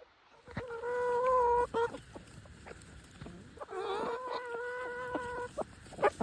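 Chickens calling: two long, drawn-out calls at a steady pitch, with short clucks around them and a sharp knock near the end.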